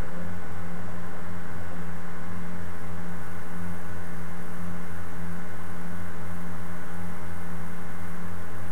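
Steady low electrical hum over a constant hiss, unchanging throughout, with no distinct events.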